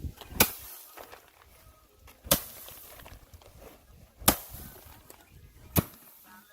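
Loud, sharp whacks repeated about every two seconds, four strong ones in a row, like a hard object or bundle being struck down again and again.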